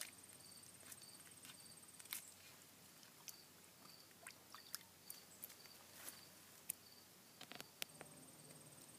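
Quiet outdoor ambience: a faint high insect trill pulsing steadily in the first couple of seconds and again near the end, over a softer chirp repeating about twice a second. Scattered faint clicks and rustles from hands working among the sumac berries and dry leaves.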